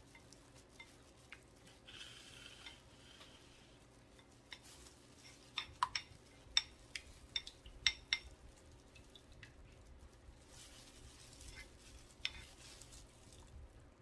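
Quiet handling of kitchenware: a cluster of sharp, light clinks and clicks about five to eight seconds in, with soft rustling before and a few stray clicks later.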